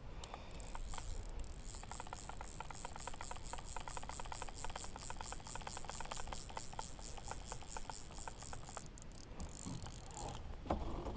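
Fly reel's click ratchet clicking rapidly and evenly as the spool turns with a hooked snook on the line, stopping shortly before the end.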